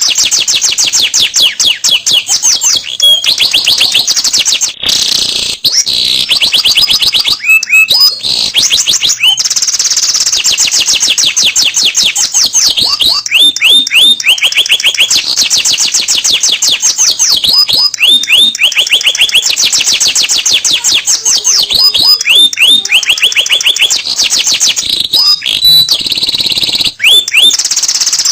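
Domestic canary singing a long, unbroken song of rapid trills. Each phrase is a fast run of the same short rising note repeated many times a second, high-pitched, changing to a new note type every few seconds with occasional sharp downward slurs between phrases.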